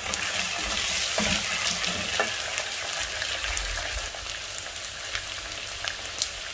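Cubed potatoes and red onions sizzling steadily in hot oil in a pot, stirred with a wooden spoon that knocks against the pot a few times in the first couple of seconds.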